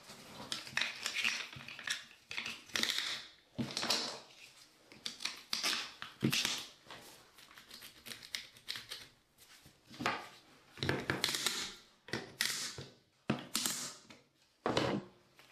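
Irregular scraping and clicking of hand tile-setting: tiles being pressed into thinset mortar and fitted with plastic leveling clips. Short scrapes come every second or so, with a few sharp clicks in between.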